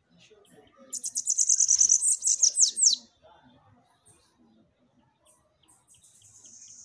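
Bananaquit (sibite) song: a high, rapid, buzzy trill lasting about two seconds that ends in a few quick downward sweeps. A second song starts near the end.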